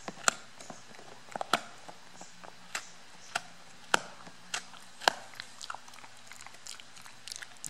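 A dog gnawing on a rawhide chew: sharp, irregular crunching clicks about once or twice a second, thinning out in the last couple of seconds.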